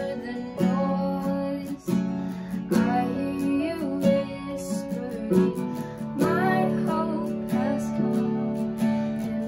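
Acoustic guitar strummed in a steady rhythm while a young woman sings a slow worship song over it.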